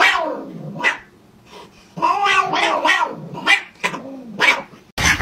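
Orange-and-white house cats fighting, yowling: a long drawn-out yowl at the start and another about two seconds in, with several short cries in between and after.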